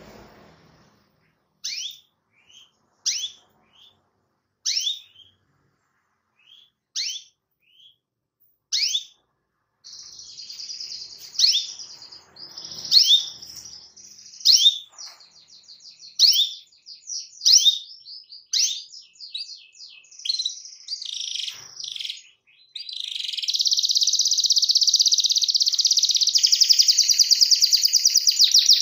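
Canary giving single sharp, downward-sweeping 'cuit' chirps spaced about a second apart. About a third of the way in, it breaks into continuous song, which becomes a fast, unbroken rolling trill for the last several seconds.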